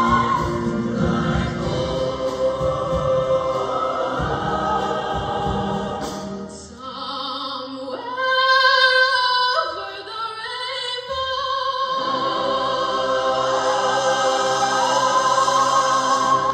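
Show choir singing full, sustained chords. In the middle the choir drops back and a single voice sings a sliding, ornamented run, then the full choir comes back in on a long held chord.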